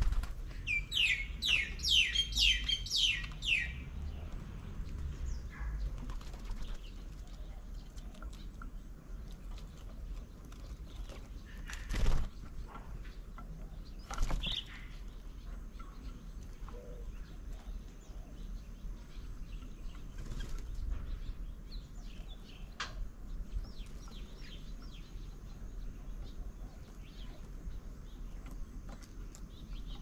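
Small birds at a bird table: a rapid run of about eight sharp chirps in the first few seconds, then scattered fainter chirps. Two brief wing flutters about twelve and fourteen seconds in, as doves come to the table.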